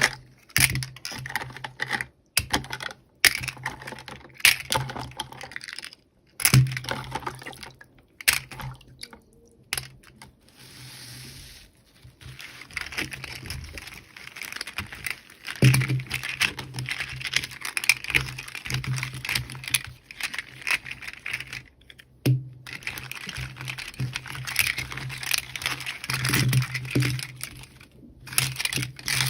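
Hands unboxing small plastic toys: rapid clicks and taps with crinkling and tearing of packaging, broken by several abrupt cuts, over a low steady hum.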